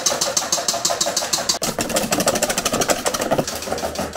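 Balloon whisk beating egg whites and caster sugar in a stainless steel bowl by hand, the wires clattering against the metal in a fast, even rhythm. The whites are being beaten towards stiff peaks for a meringue.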